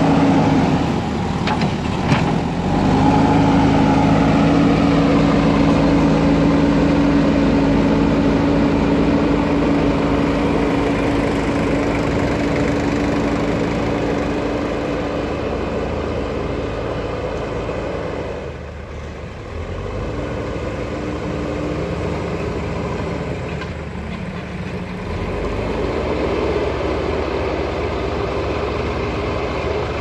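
JCB backhoe loader's diesel engine running steadily as the machine pushes and levels soil with its front bucket. It grows somewhat fainter as the machine moves off, and the engine note dips briefly twice in the latter half.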